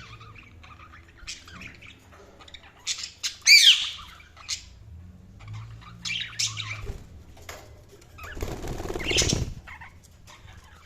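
Budgerigars chirping and squawking in short, scattered calls, the loudest run of chirps about three and a half seconds in. About eight seconds in comes a noisy rush of wing flapping lasting over a second.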